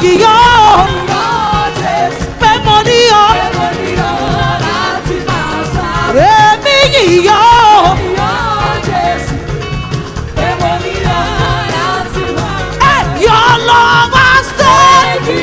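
Live gospel praise music: a band with drums and keyboard playing while a lead voice sings a melismatic line, with backing voices joining in places.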